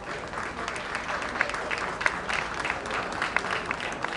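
Ringside audience applauding: many individual hand claps blending into a steady patter.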